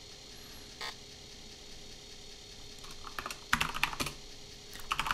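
Keystrokes on a computer keyboard: one key click about a second in, then a short run of key presses about three and a half seconds in and a few more near the end.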